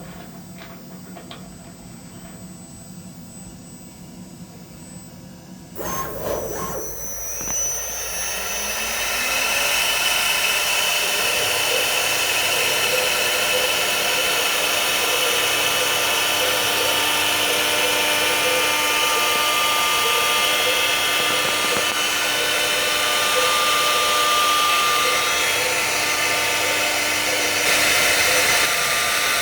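CNC milling machine thread milling. For the first few seconds it runs quietly with a few light ticks. About six seconds in, a much louder spindle-and-cutting sound starts: several steady whining tones that build over a few seconds and then hold steady.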